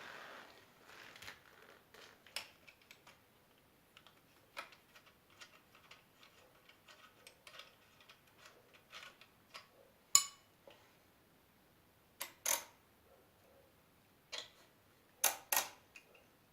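Scattered light clicks and taps, like parts and tools being handled at a workbench, with one sharp knock about ten seconds in and a few louder clacks near the end.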